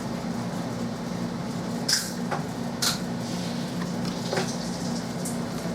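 Steady low electrical or mechanical hum of room machinery, with two short sharp hissing clicks about two and three seconds in and a few fainter ones later.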